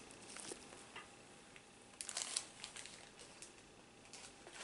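Faint rustling and light clicks of packaging being handled: a small plastic zip bag and paper, with a short cluster of crinkles about two seconds in.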